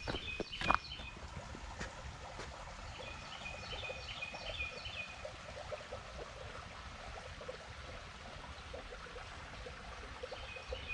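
Small creek flowing with a steady trickling hiss. A few footsteps on the trail in the first second, and a bird singing a short high phrase of quick repeated notes about three seconds in and again near the end.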